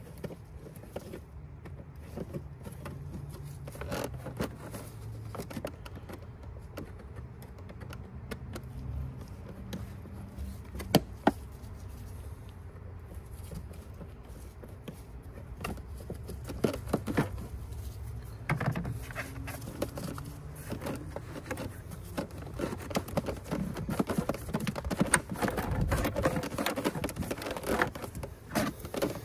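Scattered clicks, knocks and light scrapes of engine-bay parts being unclipped and moved by hand while the stock intake is taken apart, over a steady low hum. The clicks come thicker near the end.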